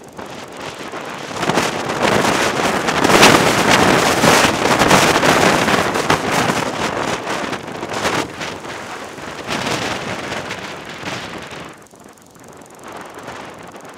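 Strong gusty wind buffeting the microphone in the open. A gust builds about a second and a half in, stays loud for several seconds, and dies away near the end.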